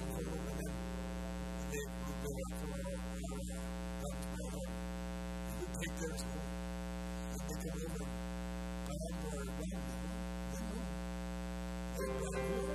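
Steady electrical mains hum, a low drone with a stack of buzzing overtones, with faint scattered sounds over it.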